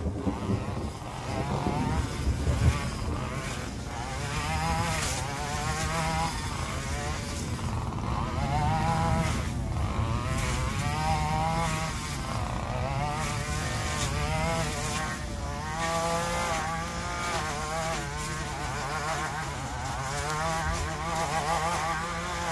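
Two-stroke petrol brush cutter running at a distance, its engine pitch repeatedly rising and falling as it is revved into the overgrown vegetation.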